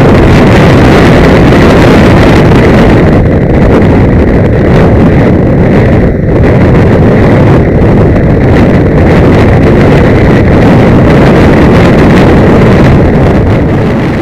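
Loud wind noise buffeting a helmet camera's microphone at motorway speed, drowning out the motorcycle, with a faint steady high whistle. It starts to fade out right at the end.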